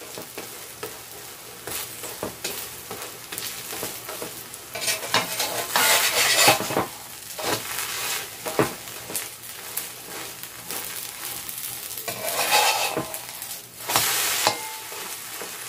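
A vegetable pancake sizzling in oil in a non-stick frying pan, while a metal slotted spatula scrapes and presses against it and the pan. The scraping gets louder in two bouts, about a third of the way in and again near the end.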